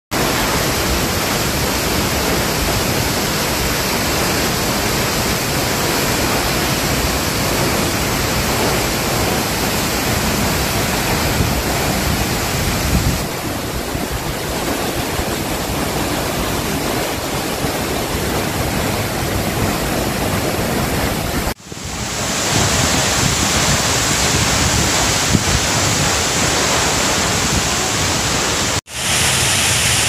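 Tall twin waterfall roaring: a steady, heavy rush of falling water. The sound drops out abruptly for a moment twice in the last third and comes straight back.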